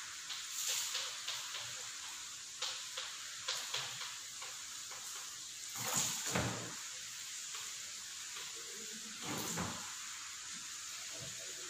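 Chalk tapping and scratching on a blackboard as words are written, a string of short sharp clicks, with two louder thumps about six and nine and a half seconds in, over a steady background hiss.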